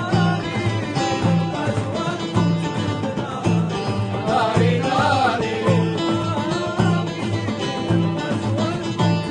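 Music with a steady, repeating bass beat and plucked strings, with a singing voice rising above it around the middle.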